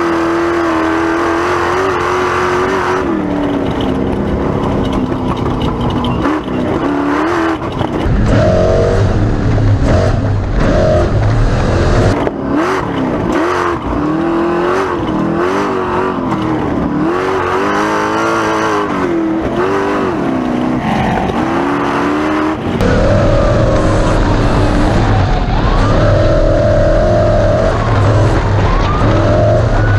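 Race truck engine running hard, its revs rising and falling about once a second through the middle, then held louder and steadier near the end.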